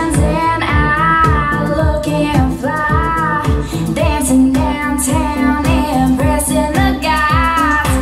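Pop song with a female lead vocal over a steady bass line, played back through a PA speaker system with its auto EQ switched off.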